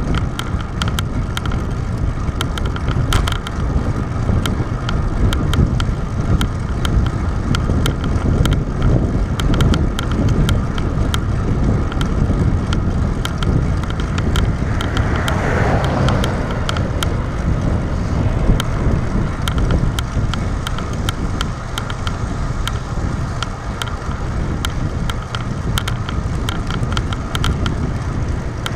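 Road bike ridden along a paved road, heard from a handlebar-mounted camera: steady wind rush on the microphone and tyre rumble, with rapid light ticks. About halfway through, a car passes, its sound swelling and falling in pitch.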